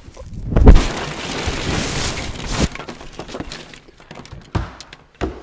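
A person crashing down behind a workbench after leaping over it: a heavy thud about a second in, then a couple of seconds of crashing and clattering, and a few scattered knocks after.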